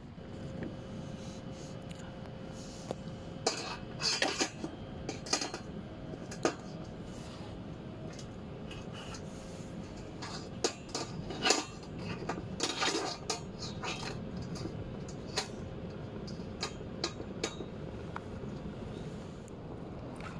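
Metal clinks and clatter of a wire cooking grate and metal plate being handled on a portable charcoal grill's steel bowl. They come in scattered bursts, the loudest a little past halfway through.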